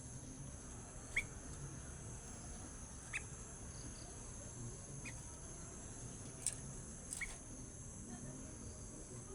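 Young sooty-headed bulbul giving short single chirps, one every second or two, over a steady high insect trill like crickets.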